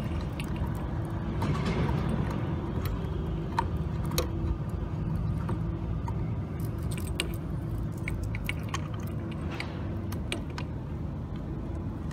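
Small metallic clicks and taps of coaxial cable connectors being handled and screwed onto the ports of a satellite quad LNB. These come at irregular moments over a steady low rumble.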